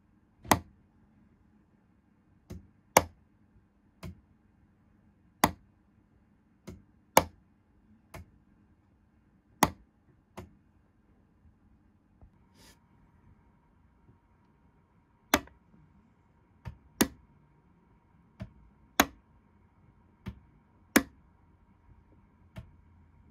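Gaugemaster PM2 solenoid point motors snapping over as N gauge points are tested, fired through a capacitor discharge unit and toggle switches. The sharp clicks come about once a second, louder and softer ones alternating, with a pause of a few seconds in the middle. A faint steady hum sets in about halfway through.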